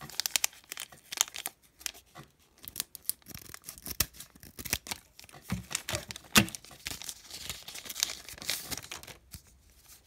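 Foil wrapper of a Pokémon trading-card booster pack being torn open and crinkled by hand, in a run of sharp rips and crackles.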